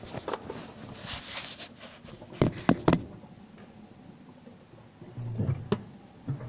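Handling noise as a phone camera is carried about: rustling, then three sharp knocks in quick succession about two and a half seconds in, and a few dull thumps near the end.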